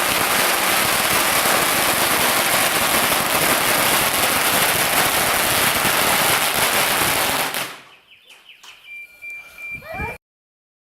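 A long string of firecrackers going off in one continuous rapid crackle, loud and dense, ending about eight seconds in with a few scattered pops. The sound cuts off abruptly near the end.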